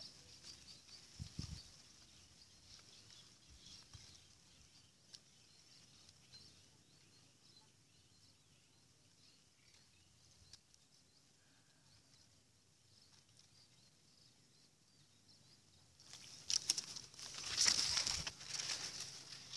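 Quiet field ambience with a faint steady high hiss. About sixteen seconds in, loud crackling rustles start as corn leaves brush against the phone's microphone.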